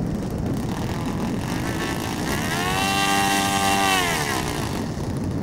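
Saito four-stroke engine of an RC model airplane, held on the ground, revved from idle up to high throttle about two seconds in, held briefly, then throttled back down near the end: a pre-flight run-up.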